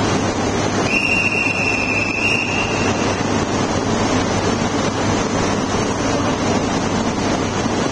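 Steady running noise and low hum of Shinkansen trainsets standing coupled at a station platform, their on-board equipment running. About a second in, a single high, steady electronic beep sounds for about two seconds.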